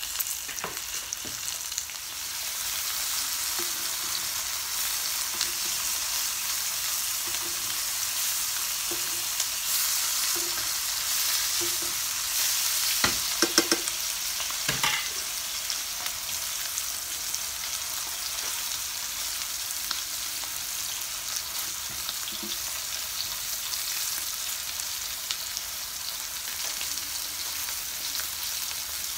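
Bone-in rib steak pan-searing in butter and meat juices, a steady sizzling hiss. A few sharp knocks come about halfway through.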